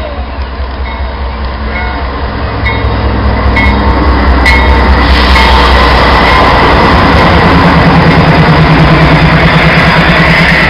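GE AC4400CW diesel locomotive approaching and passing close by, its low engine drone growing louder over the first four seconds, with short high rings repeating about once a second for a few seconds. Then a loud steady rumble with a fast rattling pulse as the train's cars roll past.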